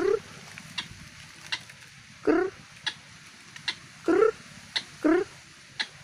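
White-breasted waterhen calling: four short rising calls spaced about one to two seconds apart, with brief sharp notes between them.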